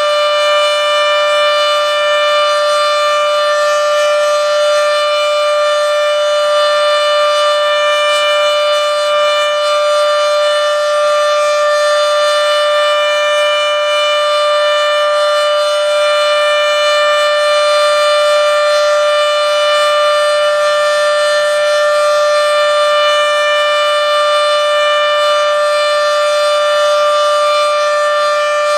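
Federal Signal Model 7B outdoor warning siren sounding its alert signal: one loud, steady tone with rich overtones, held without change and below the siren's full pitch.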